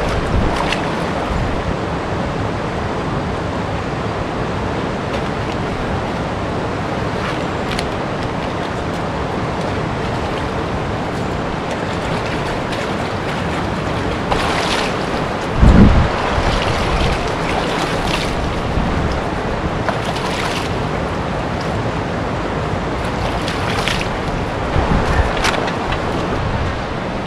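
Steady rush of a shallow river running over rocks and riffles. From about 14 seconds in, hands splash in the water several times, and there is one loud thump just before 16 seconds.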